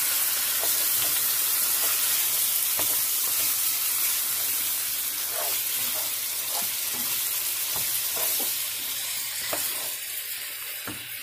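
Raw mutton chops sizzling in hot oil with browned onions and ginger-garlic paste, just added to the pot and being stirred with a spoon that knocks and scrapes against the pot now and then. The sizzle gets quieter near the end.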